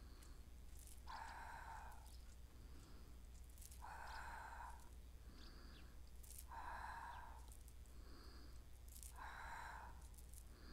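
A woman's faint, rhythmic breathing: a breath out about every two and a half seconds, with softer breaths in between, over a low steady hum.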